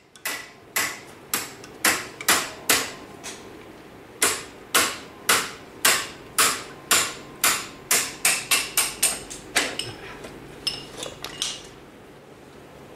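Hammer blows in a steady run, about two a second, each a sharp strike with a short ring, with brief pauses twice before the blows stop near the end.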